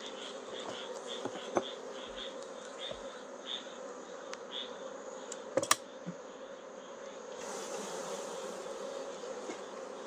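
Honeybees buzzing steadily around an opened hive full of capped tupelo honey frames. A steel hive tool prying a frame loose clicks sharply about a second and a half in, then twice more, loudest, a little past halfway.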